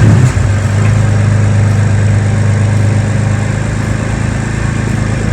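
BMW M4's S55 twin-turbo straight-six idling just after being started, its start-up surge dying away in the first half-second and settling into a steady idle.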